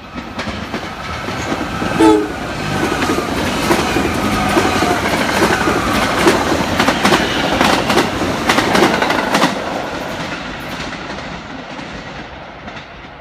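NJ Transit Arrow III electric multiple-unit commuter train coming up and passing close at speed, with a short horn blast about two seconds in. Its wheels clack over rail joints as the cars go by, then the sound fades away.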